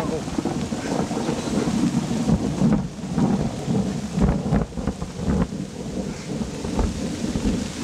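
Rain falling in a thunderstorm, with thunder rumbling low throughout.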